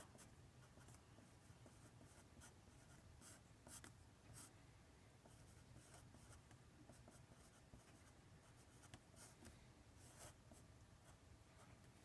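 Faint scratching of a felt-tip marker writing on paper, in short irregular strokes.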